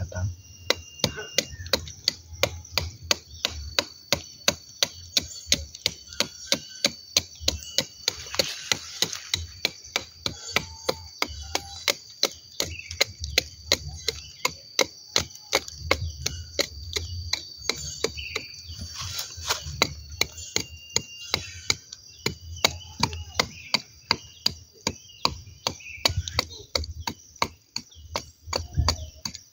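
Knife blade chipping and scraping diseased bark out of a durian tree's trunk canker, in quick, regular strokes about two to three a second.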